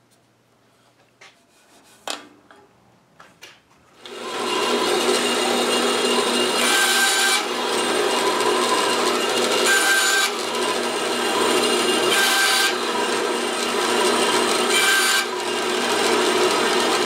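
Band saw starting about four seconds in and running steadily while it cuts a wooden dowel into short lengths. The sound grows sharper four times, about two and a half seconds apart, as the blade goes through the dowel. A few light handling clicks come before it starts, and it winds down at the very end.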